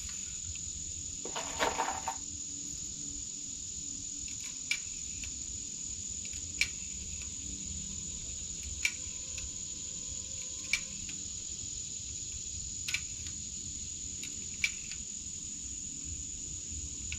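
Sharp little clicks about every two seconds as .22 rimfire cartridges are pushed one by one into a Marlin Model 60's tube magazine, with a brief rustle near the start. A steady high cricket trill runs underneath.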